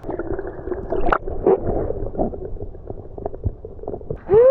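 Shallow seawater sloshing and splashing, with irregular small splashes throughout. A short voiced exclamation starts near the end.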